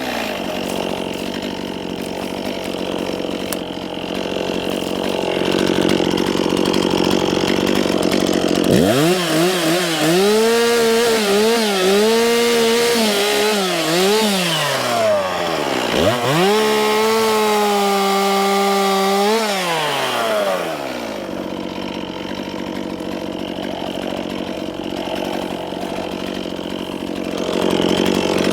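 Two-stroke chainsaw idling, then run up to full throttle twice for several seconds each while cutting into an 18-inch dead spruce, its pitch sagging and recovering under load before dropping back to idle; it revs up again near the end.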